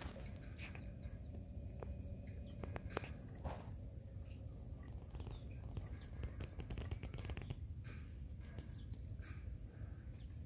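Outdoor ambience: a steady low rumble with scattered small clicks and taps and a few faint, short chirps.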